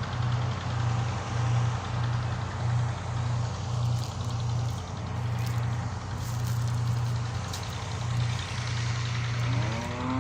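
New Holland 8070 combine harvester running steadily, with a low hum that swells and dips under a continuous mechanical noise.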